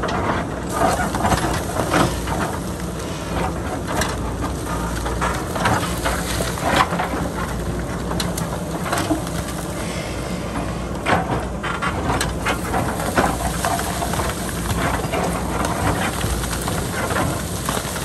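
JCB backhoe loader's diesel engine running under load while its bucket digs into and breaks rock, with irregular cracking, scraping and clattering of stones throughout.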